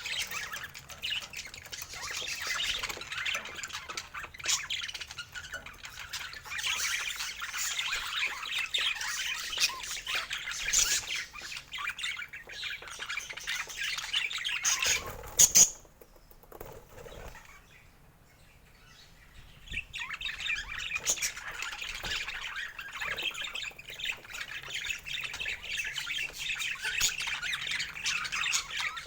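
Pet parakeet chattering with rapid squawks and chirps. A loud sharp sound comes about halfway through, then a few seconds of near quiet, then the chatter starts again.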